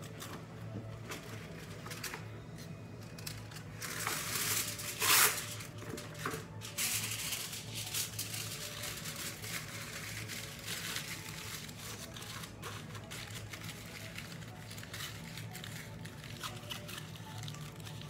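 Aluminium foil crinkling and being crumpled in the hands, with the loudest rustling burst about five seconds in and lighter crinkling after. Soft background music underneath.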